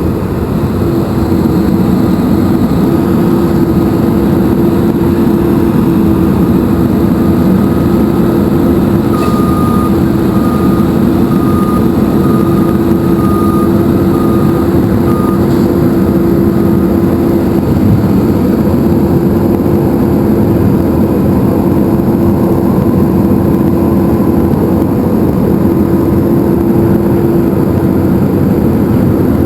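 Heavy stormwater-maintenance truck machinery running with a loud, steady drone. A faint high beeping comes and goes for several seconds partway through.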